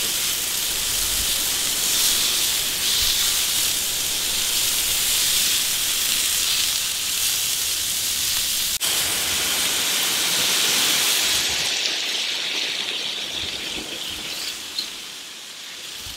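Wagyu steaks sizzling on a gas grill's griddle plate, a steady loud hiss. In the last few seconds the sizzle thins out and gets quieter.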